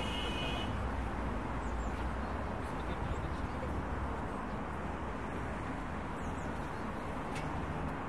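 Steady drone of distant road traffic, a low, even city rumble with no single vehicle standing out.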